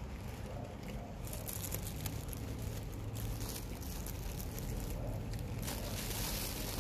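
Steady low room hum with faint scattered clicks and rustling, and a louder rustle near the end.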